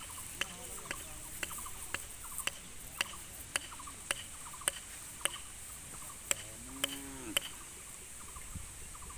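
Regular ticking about twice a second over a steady high hiss, with a short arched animal call about seven seconds in.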